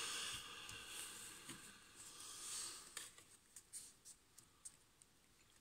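Cards being handled on a wooden table: soft rustling and sliding, then a few light clicks and taps as a card is drawn from the deck and laid down, between about three and five seconds in.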